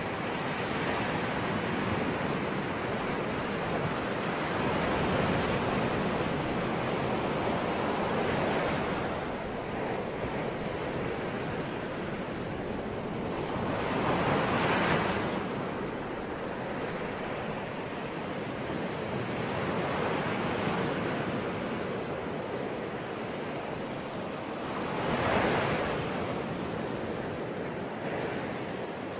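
Ocean waves breaking and washing ashore in a continuous rush, with two stronger surges, one about halfway through and one near the end.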